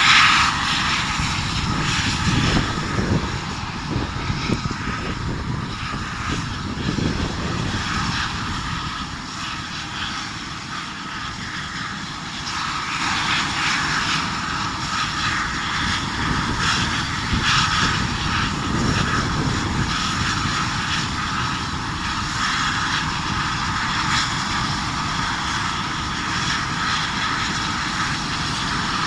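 Helicopter engine and rotors running continuously, fading somewhat about ten seconds in and growing louder again a few seconds later.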